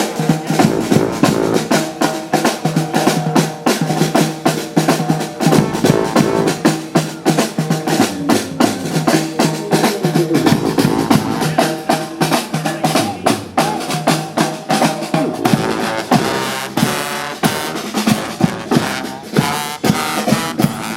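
Live street band: horns playing over a drum section, with snare and bass drum beating throughout.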